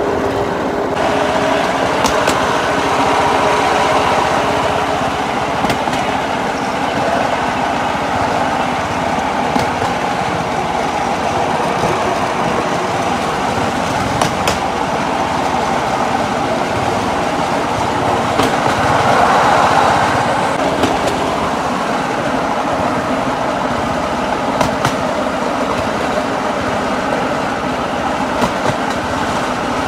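Motorized rail skate running along the railroad track: a steady engine drone mixed with the rumble of its wheels on the rails, with sharp clicks now and then.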